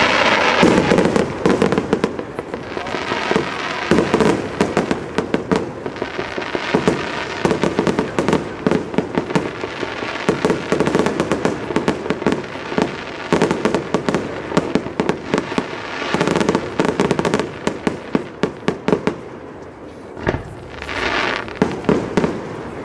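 Aerial fireworks display: a dense, continuous run of shell bursts and crackling bangs. There is a short lull about twenty seconds in before another strong burst.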